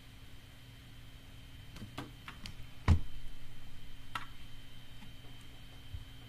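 Scattered computer mouse clicks and one louder thump about three seconds in, over a faint steady hum.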